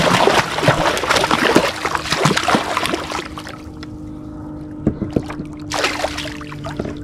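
Hooked striped bass thrashing at the surface beside the kayak, sending up loud, dense splashing for the first three seconds, then a short fresh burst of splashing near the end.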